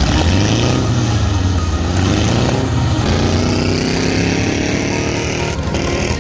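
Off-road modified Volkswagen Beetle engines, air-cooled, running hard, with the pitch rising and falling as the cars are revved and driven on the dirt track.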